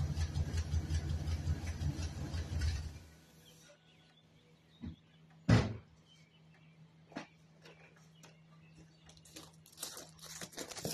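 Pickup truck engine idling with a pulsing exhaust during a Seafoam top-end carbon cleaning fed through the brake booster vacuum hose, then shutting off abruptly about three seconds in. A single loud thump comes a couple of seconds after the engine stops, followed by faint scattered clicks.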